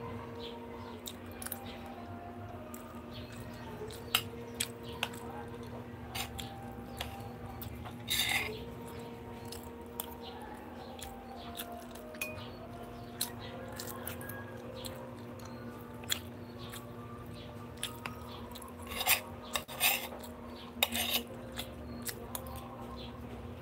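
Spoon clinking and scraping on a plate while rice is eaten, scattered light clicks with a few louder clatters, over a faint steady hum.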